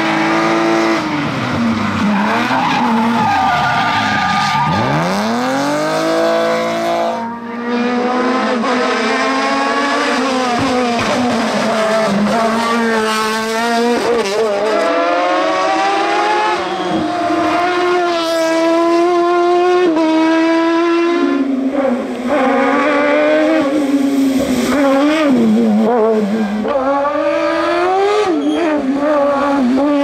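Racing cars' engines on a hillclimb, one car after another. Each revs hard, then drops in pitch through gear changes and braking before climbing again, with tyre squeal in places. A red BMW E30 comes first and a sports prototype follows.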